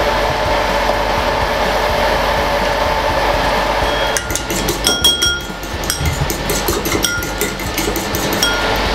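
A metal fork beating an egg in a ceramic bowl, its tines clinking rapidly against the bowl's side with short ringing tones, from about four seconds in until near the end. Before that there is only a steady rushing noise.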